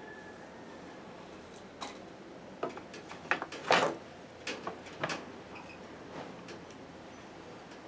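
A handful of short clicks and knocks from objects being handled, bunched together in the middle, the loudest a slightly longer knock a little before the four-second mark.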